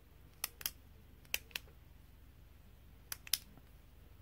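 Parker Jotter ballpoint's push-button clicking: three quick double clicks, each pair about a fifth of a second apart, with a second or two between pairs.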